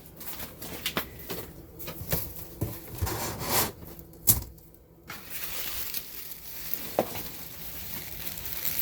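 Packaging of a newly opened air-conditioner box being handled: scattered clicks and knocks, one sharper knock about four seconds in, then a steady rustle of cardboard and plastic as the parts are pulled out.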